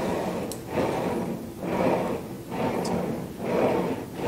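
Steel outfeed support roller being rolled back and forth over plastic laminate, pressing it down onto the plywood to bond the contact cement. The noise swells and fades with each pass, about one stroke a second.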